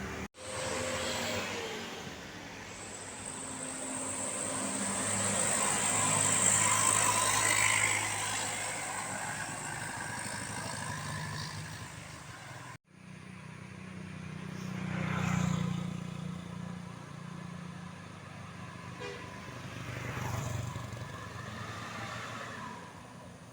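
Large buses climbing a hill and passing close by one after another, their diesel engines working under load. The sound swells and fades with each pass.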